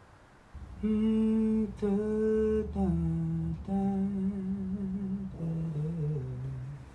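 A man humming a slow, wordless melody in about five long held notes, starting about a second in; it is the melody of the song.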